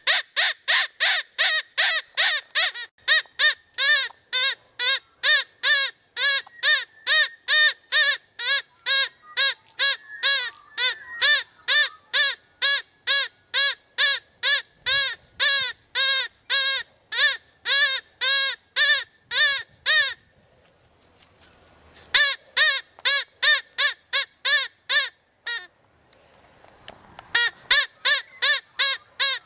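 Rabbit distress call played back from a battery-powered electronic hunting caller: short, high squealing cries repeated in an even, machine-like series of about two a second, broken by two brief pauses in the second half.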